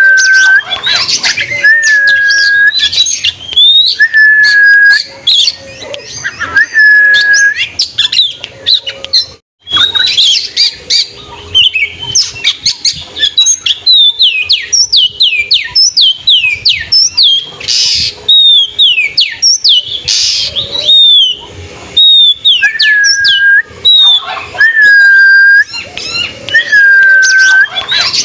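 Oriental magpie-robin (kacer) singing loudly: one clear whistled note repeated about every second and a half, then a fast, varied run of high falling notes mixed with harsh clicks, then the repeated whistles again near the end. The sound cuts out briefly about a third of the way through.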